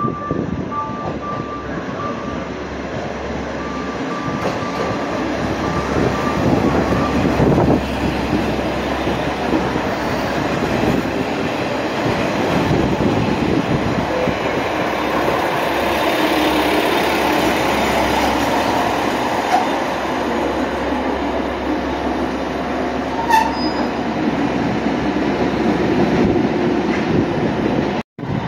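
JR West KiHa 47 diesel railcars pulling into the platform and slowing to a stop, with the diesel engines and the wheels on the rails rumbling and growing louder as the cars pass close. There is a brief sharp sound about three-quarters of the way through.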